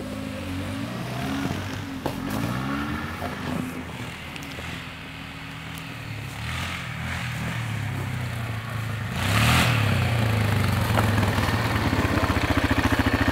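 Vehicle engines on snow: a car's engine revs up and down as it spins past, then a Yamaha ATV's engine comes up close and runs at a fast, even idle. The rider says the engine is running badly and wonders whether the carburetor is at fault again.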